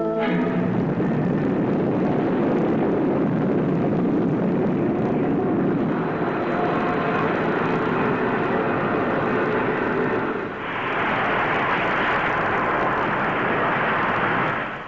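Spaceship rocket-engine sound effect, a steady rushing roar of a takeoff and flight. About ten seconds in it dips briefly and comes back brighter and hissier, then cuts off suddenly.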